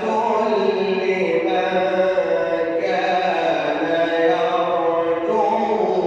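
A man reciting the Quran in melodic tajweed style, drawing out long notes that glide up and down, with an added echo effect on the voice.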